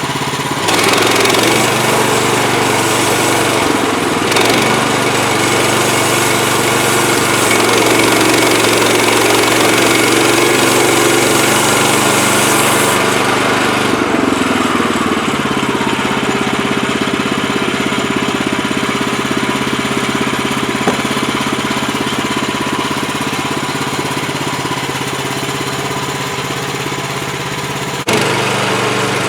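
HM130MAX portable band sawmill's gas engine running steadily under load. From about a second in to about fourteen seconds a dense hiss rides over the engine, then eases off with a falling pitch, and the engine runs on more evenly.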